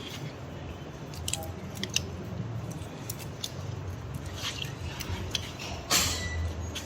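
Surgical instruments handled against metal: scattered sharp clicks and short scrapes over a low steady hum, with a louder rustle about six seconds in.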